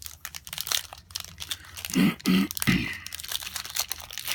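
Foil trading-card pack wrapper crinkling and rustling as it is handled and torn open, with many small crackles and three dull bumps around the middle.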